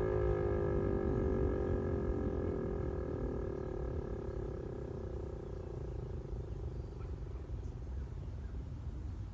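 Federal Signal 508 dual-tone outdoor warning siren winding down at the end of its attack-signal test: its tones slide lower and fade over about five seconds. A steady low rumble continues underneath.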